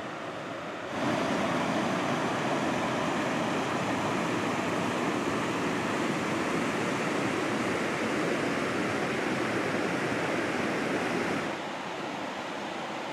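Mountain creek water rushing over rocks in a shallow riffle, a steady wash of noise. It jumps louder about a second in and drops back near the end.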